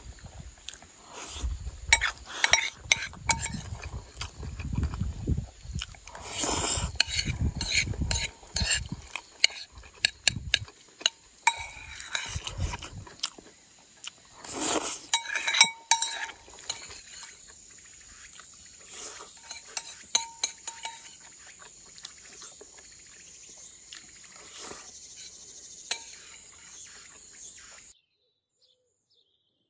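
Metal spoon clinking and scraping against a ceramic bowl while mouthfuls of rice are eaten, with close-up chewing and smacking. The sound cuts off suddenly near the end.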